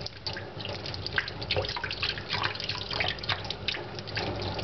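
Kitchen faucet running onto a roasted pepper held in the stream, the water splashing irregularly into a stainless steel sink as hands rub the charred skin off.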